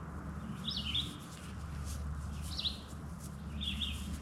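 A small bird chirping outdoors: three short, high chirped phrases about a second apart, over a faint low background rumble.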